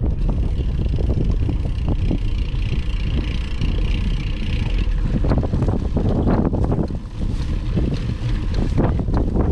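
Wind buffeting the microphone on a moving mountain bike, with frequent rattles and knocks from the bike riding over trail, and a steady high buzz for a few seconds in the middle.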